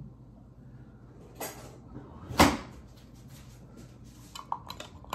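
Two knocks about a second apart, the second one loud and sharp. Near the end, a metal spoon stirring in a glass jar, clinking quickly against the glass with a light ring.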